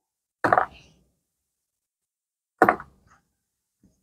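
Two short, sharp impacts about two seconds apart, each ringing briefly before dying away.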